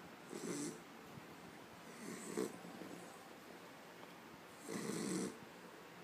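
A sleeping pet snoring: three short snores, each about half a second long, coming every two to three seconds.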